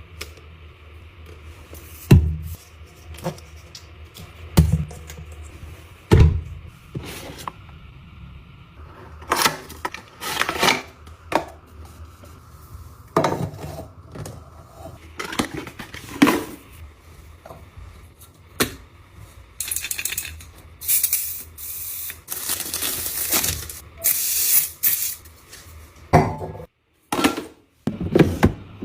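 Containers and packaging being handled and set down during restocking: a string of separate clicks and knocks, with several stretches of rustling or crinkling about two-thirds of the way through.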